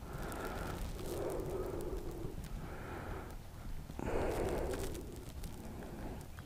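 A man breathing audibly in slow, soft breaths about a second long, with faint small clicks between them.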